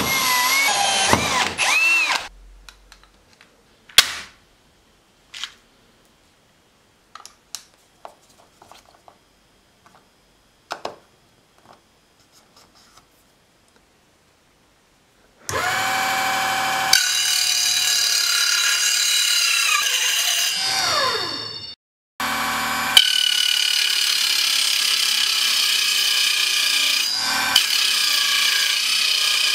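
A drill runs for about two seconds, its pitch rising and falling as it bores into an aluminium square tube, followed by scattered small clicks and knocks. About 15 seconds in, an angle grinder mounted in a sliding cutting jig runs for about six seconds and spins down with falling pitch. It starts again about 22 seconds in and runs steadily, cutting into an aluminium square tube.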